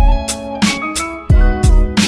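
Hip-hop instrumental backing track: a plucked melody over a beat of deep, pitch-dropping kicks and sharp snare hits.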